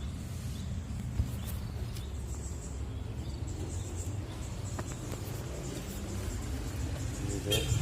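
Outdoor forest ambience: a steady low rumble under a faint, high, continuous insect drone, with one sharp click about a second in.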